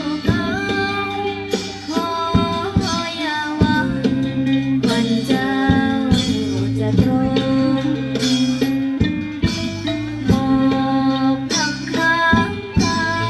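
Isan ponglang band playing, with a singer over steady held drone notes and drum and percussion beats.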